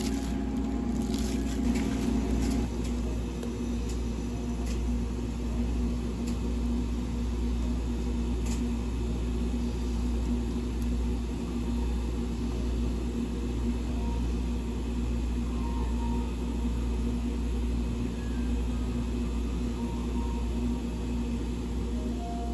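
A steady low machine hum of kitchen appliances, with a held tone running through it. Faint clicks and rustles from hands in plastic gloves working dough come in the first two seconds.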